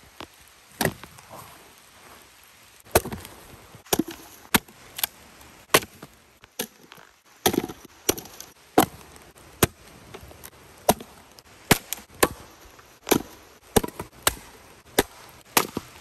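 Splitting axe striking and splitting wooden rounds: repeated sharp chopping cracks, roughly one a second at an uneven pace, as pieces split off.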